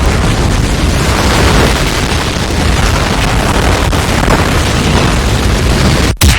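Hurricane sound effect: loud, continuous rushing wind with a heavy low rumble. Just before the end it drops out for a moment, comes back in a short burst, then cuts off suddenly.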